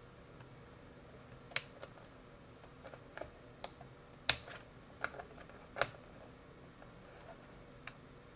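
Sharp plastic clicks and clacks of an iBook laptop keyboard being unclipped and lifted off the computer: several separate clicks a second or so apart, the loudest about four seconds in.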